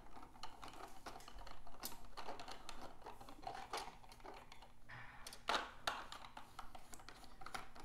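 Ribber of a circular sock knitting machine being seated and fitted by hand: irregular small clicks and taps of plastic and metal parts, with a couple of sharper clicks about five and a half seconds in.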